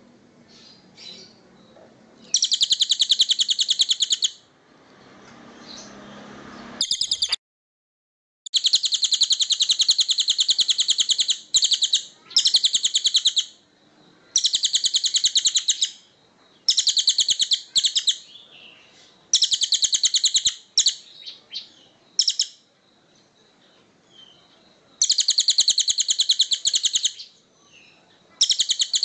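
Songbird singing high, rapid trills of quickly repeated notes, in bursts of one to two seconds with short pauses between them. The sound drops out completely for about a second, some seven seconds in.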